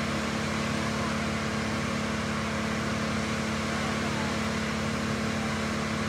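Engine-driven tree-cutting machinery running steadily: one constant drone that holds the same pitch throughout.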